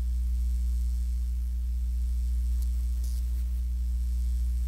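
Steady low electrical hum of a lit neon sign, with a faint sizzle and a couple of light crackles around the middle.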